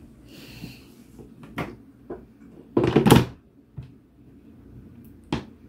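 Plastic clean-water tank of a Bissell ProHeat Pet Turbo carpet cleaner being handled and pressed into its seat: scattered plastic knocks, a louder clunk a little under halfway through, and sharp clicks near the end as it is locked in place.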